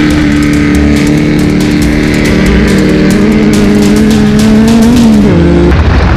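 Class 1600 off-road race buggy engine running hard at speed. Its pitch climbs slowly and then drops sharply about five seconds in. Background music with a steady beat plays over it.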